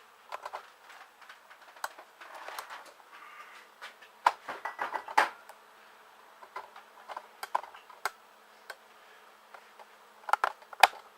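Metal tools and parts being handled: scattered sharp metallic clicks and clanks, with a quick run of knocks about four to five seconds in and another near the end, over a faint steady hum.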